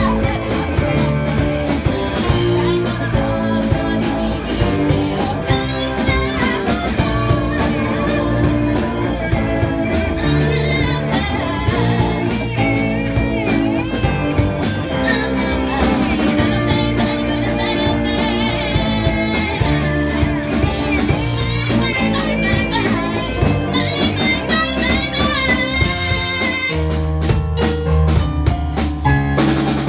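Live band playing a pop-rock song: a singer over electric guitar, bass and drum kit, with heavier full-band hits in the last few seconds.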